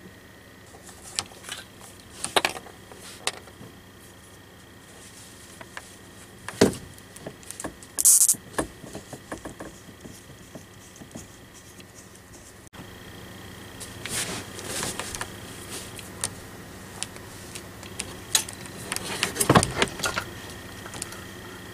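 Handling noise from hands fitting plastic water-line connectors and hoses onto a small electric water heater: scattered clicks, knocks and rattles of plastic parts, over a faint steady high whine.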